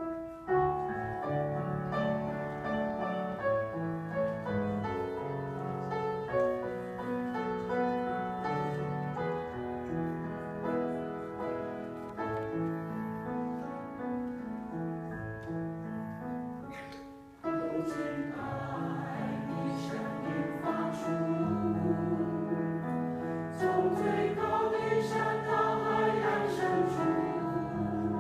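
Choir singing sustained chords. After a brief drop just past the middle, the singing returns fuller and louder, with wavering held notes.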